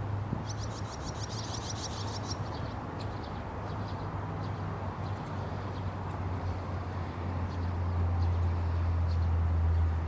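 Young barn swallows chirping: a fast run of high twittering chirps in the first two seconds, then scattered single chirps. A low steady rumble grows louder in the second half.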